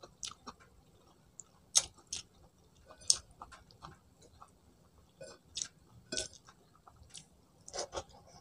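Close-up mouth sounds of eating: chewing and lip smacks, heard as short, wet clicks that come irregularly.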